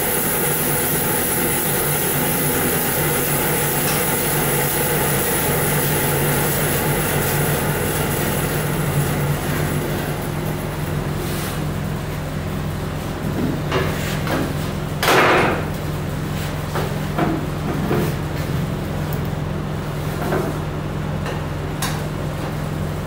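Band saw running steadily with a constant motor hum. A high hiss in the first half fades out about halfway through. Several knocks and one louder brief scrape follow as the log is handled against the saw.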